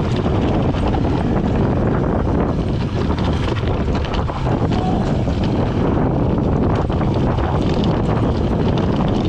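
Wind rushing over the microphone of a mountain bike descending a dry dirt trail, with steady tyre rumble over leaves and earth and frequent small knocks and rattles from the bike over bumps.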